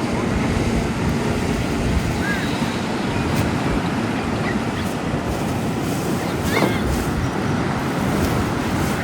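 Steady rush of wind and surf, with wind buffeting the microphone and a few short high chirps scattered through it.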